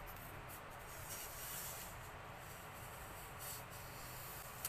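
Thin holographic plastic film being peeled off a CD by hand: faint crinkling and rustling, in a few short spells.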